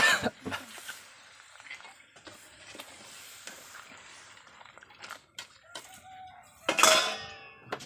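One loud, harsh call lasting about half a second near the end, most like an animal's cry. Before it come a sharp knock at the start and scattered light clicks and knocks.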